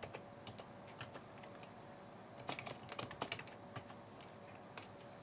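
Computer keyboard typing, faint, in short bursts of keystrokes with a denser run in the middle.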